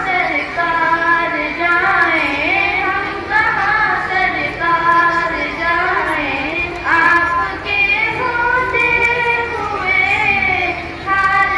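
Schoolgirls singing a naat together into microphones, a devotional song praising the Prophet Muhammad, in a held, gliding melody.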